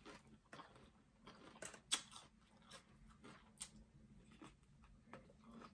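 A person chewing salad, with faint scattered crunches and clicks; the sharpest comes a little under two seconds in.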